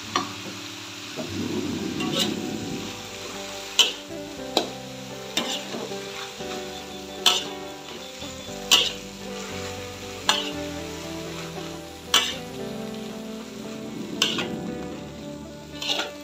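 Midin fern and durian flowers stir-frying in a wok: a steady sizzle as a metal spatula tosses the leaves, with sharp clanks of the spatula against the wok about once a second.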